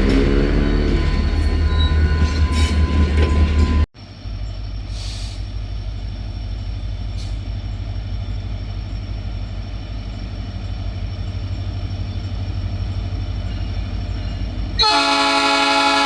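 Diesel freight locomotives rumbling as a train runs, the sound cutting abruptly about four seconds in to a quieter, steady rumble. Near the end a locomotive air horn sounds one loud blast, the warning for a level crossing.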